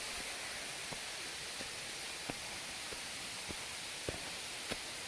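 Footsteps climbing stone steps, a light tap about every half second, over a steady hiss.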